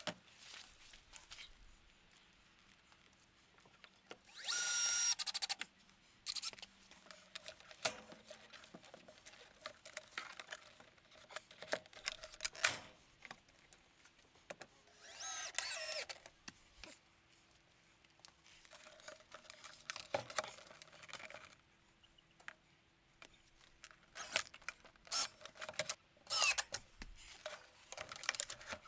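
A power drill driving screws in two short runs, about four seconds in and again around fifteen seconds in. In between are scattered clicks and knocks as plastic pipe brackets and PVC pipes are handled.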